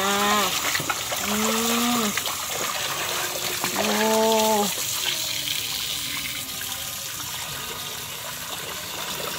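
A thin stream of water pouring steadily into a basin of bathwater, trickling and splashing around a puppy being washed. A person's voice makes three short drawn-out sounds in the first five seconds.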